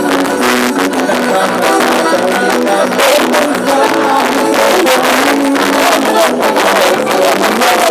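Festive band music with plucked strings and a quick percussive beat, loud and continuous.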